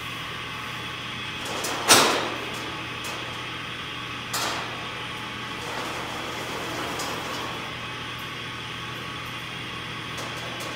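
Two sharp knocks from work on a steel band saw blade at a saw filer's bench: the first loud with a short ring, the second about two and a half seconds later and softer, over a steady shop hum.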